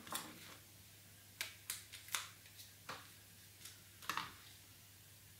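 A few light, irregular clicks and rustles of a cardboard puppet-head frame, made of taped card strips, being handled and turned over in the hands.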